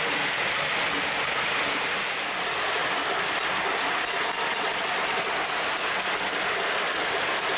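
Many glass marbles rolling and clicking against each other and along the wooden tracks of a large marble machine, a steady, dense clatter.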